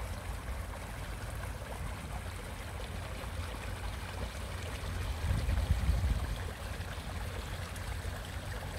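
Surface-water runoff pouring from a waterlogged field into a roadside ditch: a steady rush of flowing water. A low rumble swells about halfway through.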